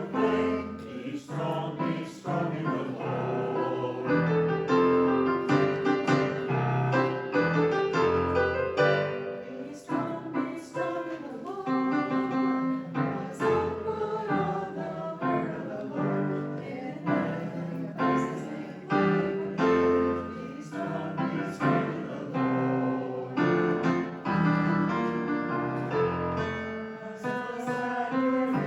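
Piano music with singing voices, a hymn or anthem sung in a church service.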